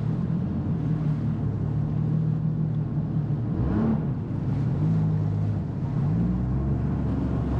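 Jet ski engine running at low speed, its pitch dipping and then rising briefly about four seconds in.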